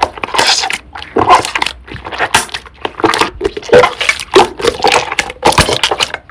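Thick cream slime being squeezed and pressed by hand, making irregular squelches and crackling pops.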